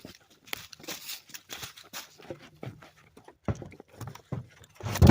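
Irregular crackling and rustling, several small clicks a second, followed by a heavy low thump at the very end.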